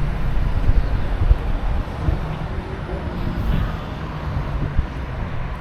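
Wind buffeting the microphone: an uneven low rumble that gusts up and down throughout.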